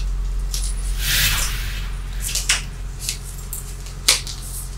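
Things being rummaged through in a wardrobe: clothes and bags rustling, with several sharp clicks and knocks, the loudest about four seconds in, over a steady low hum.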